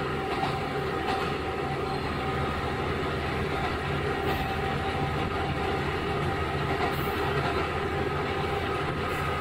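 Hitachinaka Seaside Railway KiHa 11 diesel railcar under way, heard from on board: its Cummins diesel engine runs at a steady note over the rolling noise of the wheels, with a few faint clicks.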